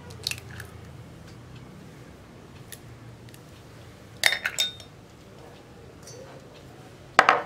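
Light clicks of an egg's shell being broken open by hand over a steel bowl, then sharp clinks of a small ceramic dish being handled: a quick cluster with a brief ring about four seconds in, and one more near the end.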